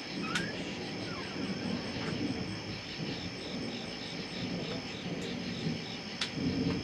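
Night insects such as crickets trilling steadily in a high, pulsing chorus over a low, uneven rumble. A few sharp ticks sound within it.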